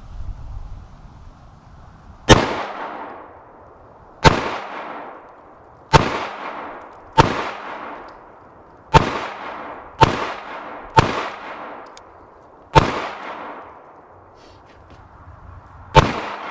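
Glock 19 Gen 4 9mm pistol being fired: nine single shots at an uneven pace, one to two seconds apart with a longer gap near the end, each shot ringing out briefly.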